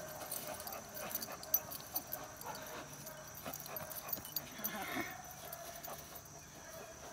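Young German Shepherd whimpering faintly twice, about two and a half and five seconds in, while it tugs on a tug toy, with a few faint clicks scattered through.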